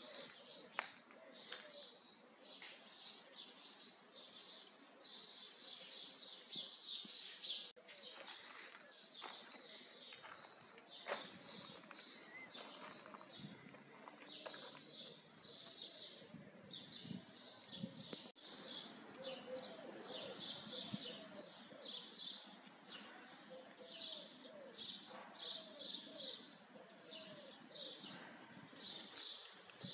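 Small songbirds chirping busily: quick, repeated bursts of high notes, with a few sharp clicks among them.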